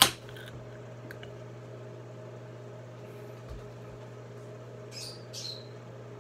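A small aluminium drink can's pull-tab snapped open with a sharp click right at the start. About five seconds in come two short sips as it is drunk, over a steady low hum.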